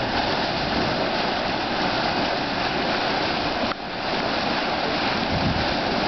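The Churning Caldron hot spring boiling, its water churning and gurgling steadily, with a brief dip in level about two-thirds of the way through.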